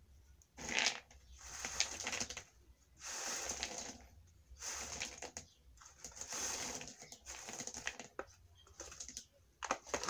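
Raw groundnuts (peanuts) rattling and clicking against each other and a plastic bowl as a hand stirs and sorts through them, in repeated bursts of about a second with short pauses between.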